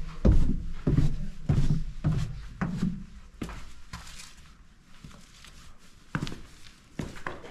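A run of dull thumps at about walking pace, roughly one every 0.6 seconds, thinning out after three and a half seconds, with two sharper knocks near the end.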